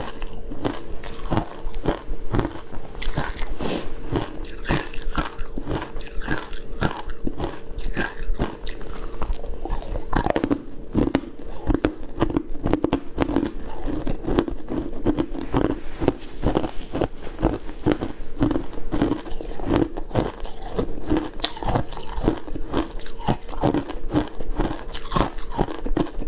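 Close-miked chewing of a mouthful of shaved ice: quick, continuous crunching with the mouth closed, several crunches a second.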